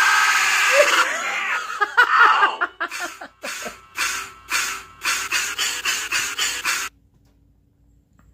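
Chopped, stuttering edited video audio: voice-like and noisy sounds, then short bursts repeated about two, then four times a second. It cuts off abruptly about seven seconds in and drops almost to silence.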